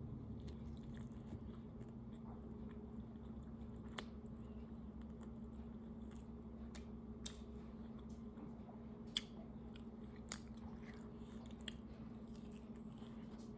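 A person chewing food close to the microphone, with a few sharp clicks and smacks scattered through, over a steady low hum.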